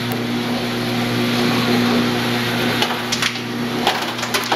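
Motorized dispensers of a prototype smoothie vending machine running with a steady hum while frozen fruit pieces drop through the funnel toward the blender jar; from about three seconds in, sharp clicks and knocks of pieces hitting the funnel and jar.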